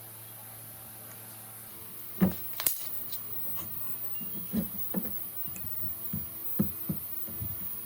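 A string of irregular knocks and clunks from about two seconds in, the loudest two coming first, over a steady low hum. It sounds like wooden pieces being handled or tapped during the build.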